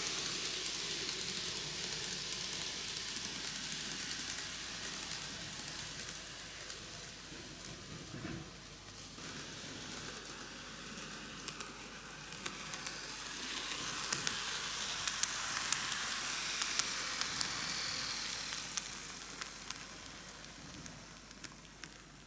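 N gauge model train, a four-car Micro Ace Seibu 4000 series set, running on curved model track: a steady hiss of wheels and motor that fades, swells again as the train comes round the loop, and fades once more, with light clicks in the second half.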